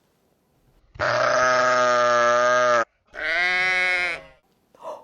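Sheep bleating: two long bleats, the first about two seconds long and the second shorter.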